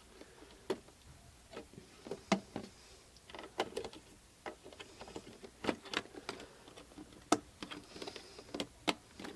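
Irregular small clicks and taps of hard plastic computer parts being handled during a PC build, a few every second, with no steady running sound.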